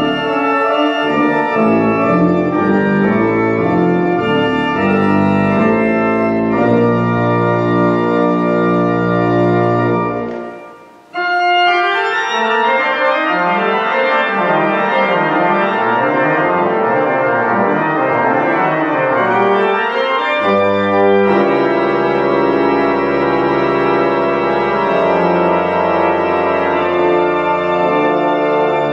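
Restored church pipe organ playing: held full chords, a brief break about ten seconds in, then fast running figures, then broad held chords over a deep pedal bass line from about twenty-one seconds.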